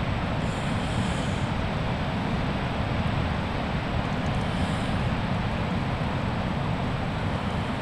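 Wind buffeting the microphone with a steady, gusty low rumble, over an even rush of surf breaking on the beach.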